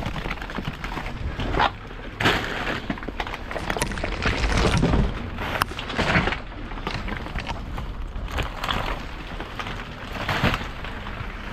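Rummaging through trash in a dumpster: irregular knocks, clatters and rustles as boxes and bags are handled.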